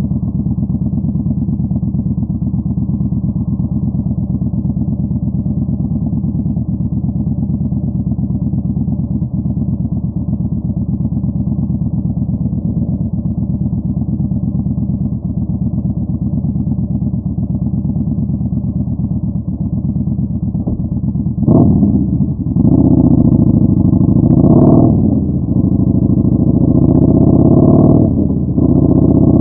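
Yamaha Bolt 950's air-cooled V-twin through a Vance & Hines Twin Slash staggered exhaust, running steadily at low revs with an even pulsing rumble. About 21 seconds in the throttle opens and it gets clearly louder, pulling hard with a few brief dips in between.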